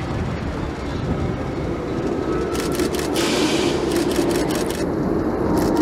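Steady mechanical rumble of a passing vehicle, growing a little louder about three seconds in.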